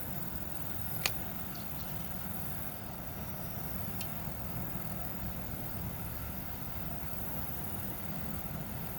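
Steady low rumbling background noise with a hiss on top, with a sharp click about a second in and a fainter tick about four seconds in.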